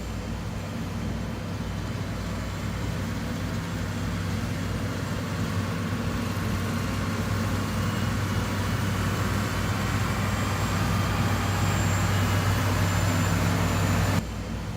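Heavy construction machinery's diesel engine running steadily with a low drone, growing a little louder toward the end before the sound changes abruptly near the end.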